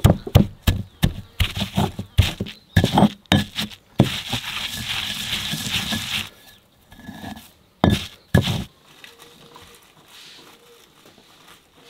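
Wooden pestle pounding garlic cloves with salt and spices in a stone mortar, sharp knocks about three a second. From about four seconds in the pestle is ground round the bowl for about two seconds, a steady gritty scraping as the garlic turns to paste. A few last knocks come about eight seconds in.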